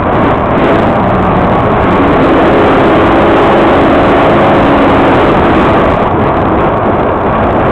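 Pro stock dirt-track race car's engine running loud and steady at low speed, heard through the car's on-board camera.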